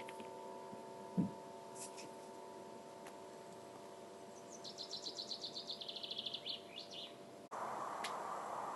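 Singing bowl ringing out, its steady tones fading, with a low thump about a second in. Midway a bird gives a rapid trill of chirps that falls in pitch. Near the end the bowl cuts off suddenly and a steady rushing sound takes over.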